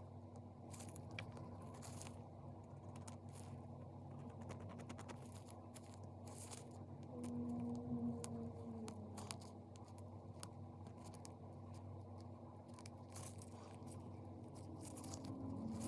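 Faint scraping and scattered small clicks as hardened old glue is picked out of the rhinestone cups of a metal costume-jewelry brooch.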